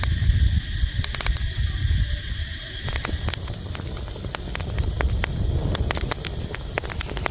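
Irregular sharp crackles and snaps over a low rumble, with a steady high-pitched buzz that stops about three seconds in.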